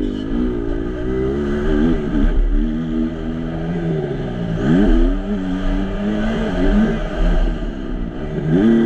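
Kawasaki KX250F four-stroke single-cylinder motocross engine ridden hard, engine speed rising and falling, dropping sharply a little past four seconds in and climbing straight back up, with another dip and climb near the end. Wind rumble on the helmet camera runs underneath.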